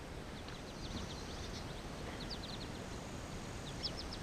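Faint outdoor bird chirps: clusters of short, quick, high notes heard a few times, over a low, steady rumbling noise.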